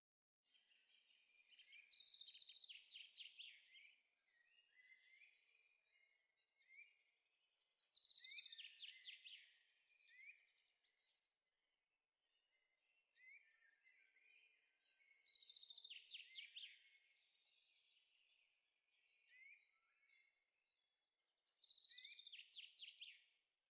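Faint birdsong: a songbird repeats a fast, trilling song about every six to seven seconds, with short chirps in between.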